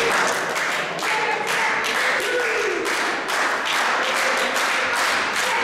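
Small crowd in a hall clapping and calling out: a run of sharp claps over a steady hubbub of voices.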